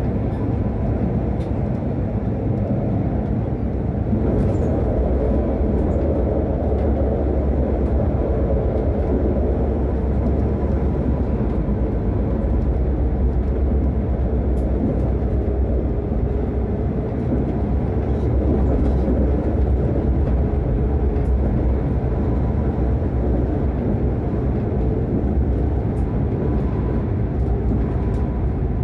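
Tram running along the track: a steady rumble of wheels and running gear, with a faint steady whine and a few light clicks.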